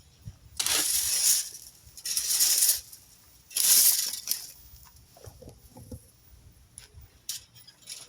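A rake dragged through leaves and twig debris in three scraping strokes, a little over a second apart, followed by a few light clicks and rustles.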